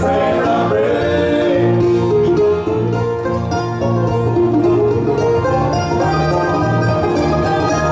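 Bluegrass band playing live, with banjo, mandolin and acoustic guitar.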